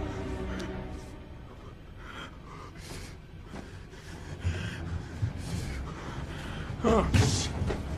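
A person breathing heavily in soft, noisy breaths, with a louder sharp gasp about seven seconds in, over a low film-score drone.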